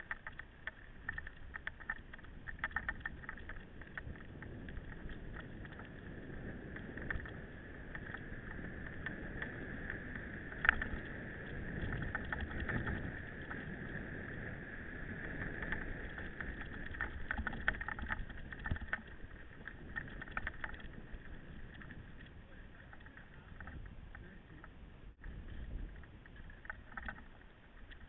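Mountain bike riding over a rough dirt track: a steady rumble of tyres and wind with frequent rattles and clicks from the bike, and one sharp knock about ten seconds in.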